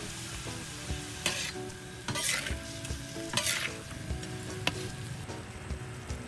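Chicken pieces stir-frying in a steel wok, sizzling, while a metal spatula scrapes and clicks against the wok several times as the meat is turned.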